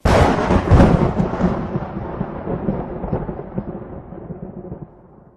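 A thunderclap that hits suddenly and rolls on as a long rumble, fading away over about five seconds as the higher sound dies out first.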